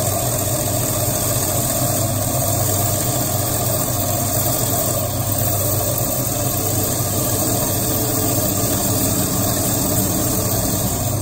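Wet band saw running steadily, its motor humming as the blade cuts the dead skeleton off a Lobophyllia coral frag. The blade is one the user calls really bad.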